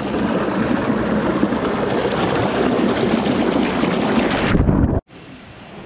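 Loud, steady rush of falling water from a waterfall, with wind buffeting the microphone. Near the end the hiss thins and a low rumble swells, then it cuts off suddenly.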